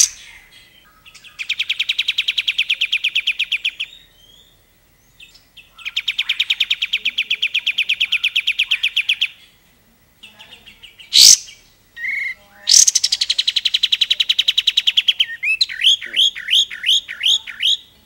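Kapas tembak (olive-winged bulbul) singing in its cage: three long runs of rapidly repeated notes, about a dozen a second, then a slower series of rising chirps near the end. A sharp knock sounds about eleven seconds in.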